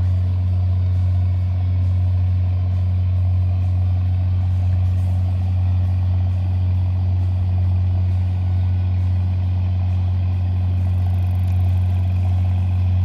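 A steady, low engine drone that holds the same pitch and loudness throughout.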